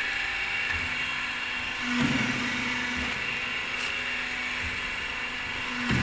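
Roofing-sheet crimping machine running with a steady mechanical whir, and a louder clunk followed by a hum for about a second, twice, about four seconds apart: about two seconds in and again at the end.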